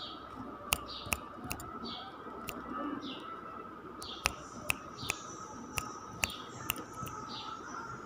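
A rose-ringed parakeet's beak biting and cracking into a fresh okra pod: about ten sharp, irregular clicks. Short high falling chirps of birds repeat about once a second, over a faint steady high hum.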